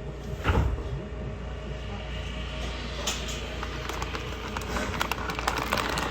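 Ichibata Electric Railway train heard from inside: a steady low running hum with light scattered clicks. A louder thump comes about half a second in.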